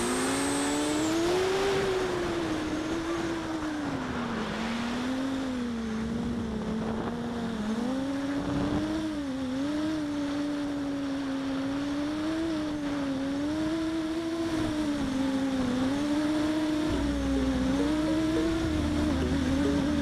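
Brushless motors and propellers of a 7-inch FPV quadcopter whining in flight, the pitch rising and falling with the throttle, over wind rush on the drone's onboard camera microphone.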